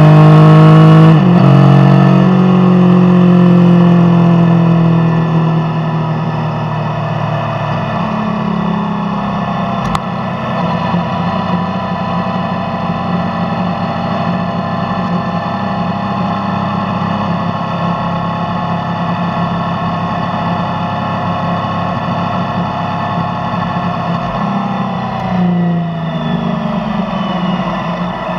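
Yamaha Tracer motorcycle engine through its stock exhaust, loud at first with a sharp drop in pitch about a second in. It then runs at a steady, lower note, and the pitch dips again near the end.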